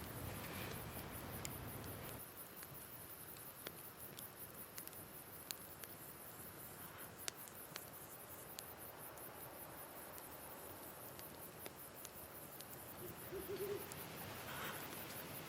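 Night ambience: crickets chirping steadily, with scattered crackles from a campfire and a single short owl hoot near the end.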